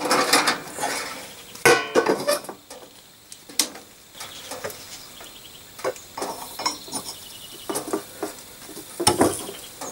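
Scattered sharp metallic clinks and knocks as a steel needle roller bearing and a suspension arm are handled on a workbench and the bearing is set into the arm's bore by hand. The loudest knocks come at about a second and a half in, around three and a half seconds in, and in a short cluster near the end.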